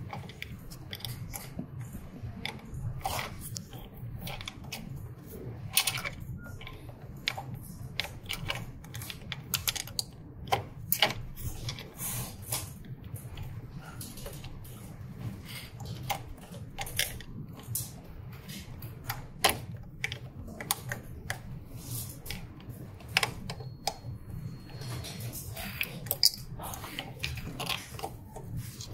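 Printhead cable connectors and flat ribbon cables being handled and plugged in by hand: irregular small plastic clicks and rustles, scattered throughout, over a steady low hum.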